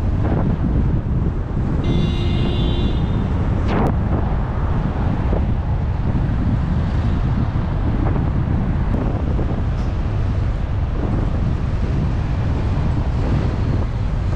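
Heavy wind buffeting the microphone of a camera on a moving bicycle, over the rumble of road traffic. About two seconds in, a brief high-pitched ringing tone sounds, followed by a sharp click.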